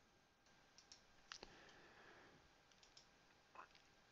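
Several faint computer mouse clicks, spaced out in the near silence.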